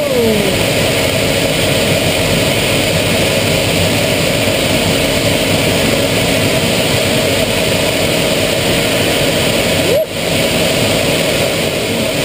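Steady in-flight cockpit noise of an Aero L-39 Albatros jet trainer: its Ivchenko AI-25TL turbofan running and air rushing past the canopy, heard from inside the cockpit. A short falling tone sweeps down at the start, and the sound dips for a moment about ten seconds in.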